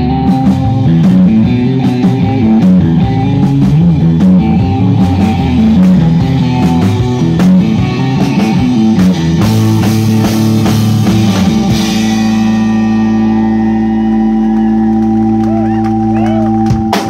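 Surf rock band playing live, electric guitar over bass and drums. About halfway through, the band lands on a final chord and lets it ring, then cuts it off at the very end.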